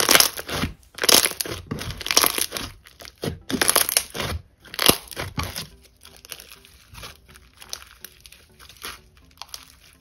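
Glossy slime with foam beads mixed in, squeezed and kneaded by hand: crunching and crackling as the beads pop and the slime squishes. Loud, dense crunches for about the first five seconds, then fainter, sparser crackles.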